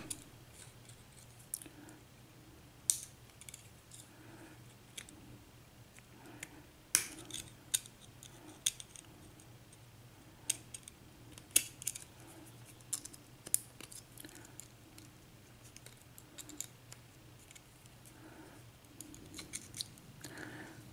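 Irregular small metal clicks and scrapes, spread out, as a tool works at the retaining clip on the back of a US Lock KIK lock cylinder to pry it off.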